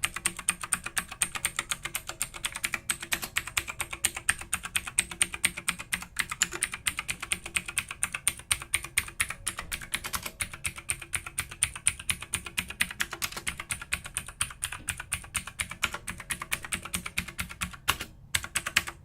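Keys of a DREVO Gramr 84-key mechanical keyboard with clone Cherry MX Blue clicky switches pressed one by one in quick succession, a steady run of sharp clicks several a second, some keys sounding slightly different by their size and place on the board. The clicks stop briefly near the end.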